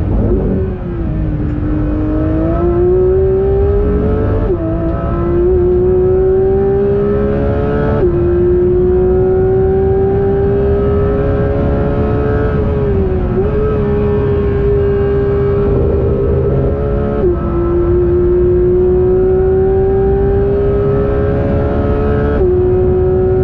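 Porsche 992 GT3 RS's naturally aspirated flat-six, heard from inside the cabin, pulling hard on track. Its pitch eases in the first couple of seconds, then climbs steadily through the gears, with a quick drop at each of four upshifts of the PDK gearbox and a brief dip and recovery near the middle.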